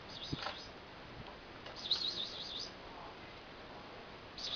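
Bird chirping: three short, rapid warbling phrases, high-pitched, the first one right at the start, the second about two seconds in, the last near the end.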